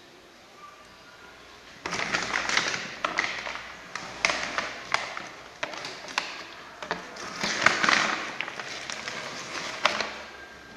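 A plastic powdered-milk bag crinkling and rustling as it is handled, with sharp clicks and taps mixed in. It starts about two seconds in and comes in waves until near the end.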